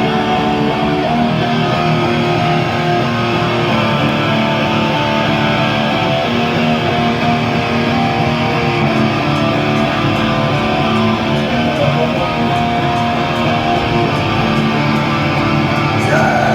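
Amplified guitar strumming and sustained chords, played continuously as a sound check.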